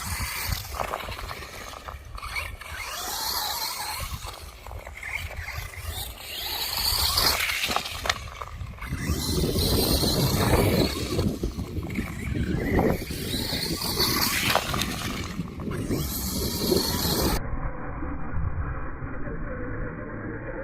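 Electric RC truck's motor whining up and down as it is driven hard on rough ground, with wind buffeting the microphone. About three seconds before the end, the sound turns dull and muffled.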